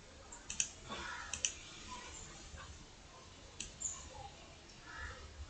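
Computer mouse clicking faintly: a quick double click about half a second in, another about a second later, and a single click past the middle, over a low steady hum.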